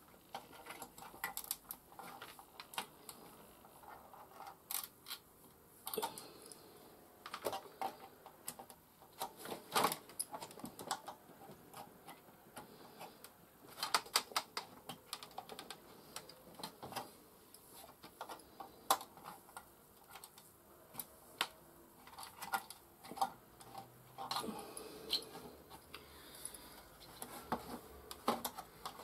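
Irregular light clicks, taps and scrapes of a tool and fingers working the CIA chip out of its socket on an Amiga A500 motherboard without a proper extraction tool, some clicks coming in quick clusters.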